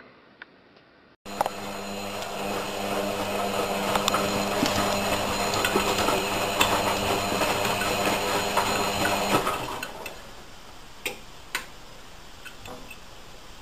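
A machine running with a steady, loud hum that stops abruptly about eight seconds in, followed by scattered light clicks and taps.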